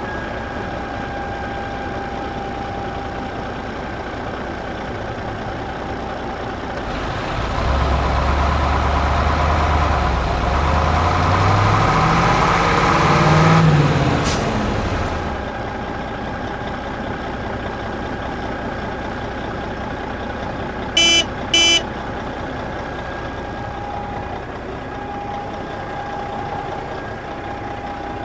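A vehicle engine running steadily, rising in pitch and loudness for several seconds near the middle as if revved or driven off, then settling back. Two short beeps sound a little later.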